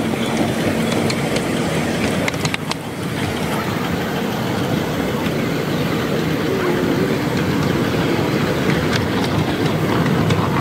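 5-inch gauge miniature steam locomotives, a Simplex 0-6-0 among them, running along the track: a steady rush of steam and running noise with occasional clicks from the wheels and rails.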